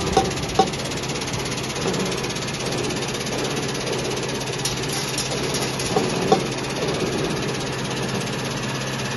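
Linear vibrating screen running steadily, its vibration motor giving a constant hum while graded corn grits and grain pour off the chutes into basins with a continuous hiss and rattle. A few brief sharp taps sound near the start and again about six seconds in.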